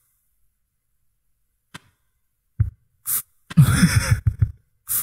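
Quiet at first, then a short hiss about three seconds in, followed by a loud, busy run of rapid strokes with a voice over the last second and a half.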